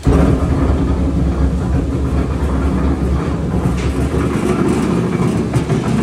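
Cattle feed mixer running empty, its paddle agitator turning in the steel trough, driven by an electric motor through a belt: a loud, steady low rumble of machinery.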